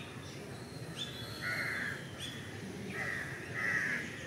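A crow cawing three times: one harsh caw about a second and a half in, then two close together near the end, with a few short, faint bird chirps between.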